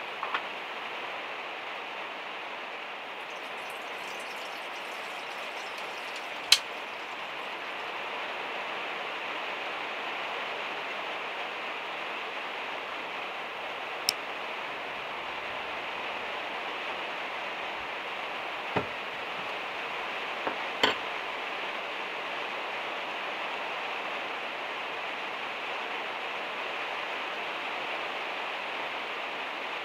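Rain on a van's metal roof, a steady hiss, with a few sharp knocks and clicks as small things are handled on the table, the loudest about six seconds in.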